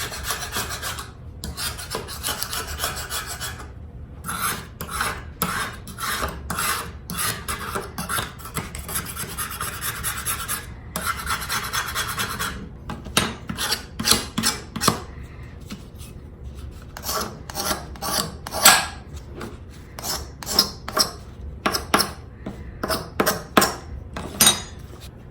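Utility knife blade scraping rust off the steel of a Stanley No. 3 hand plane, metal scraping on metal. For the first half it goes in long passes with short breaks, then turns to short separate strokes about once or twice a second.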